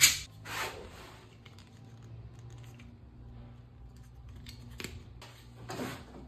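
Light plastic clicks and rubbing as a plastic margin-marker gauge is handled and its slider is set, with one sharper click right at the start.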